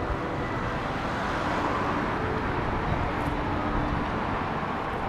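Steady city traffic noise, with cars passing on a wide multi-lane road.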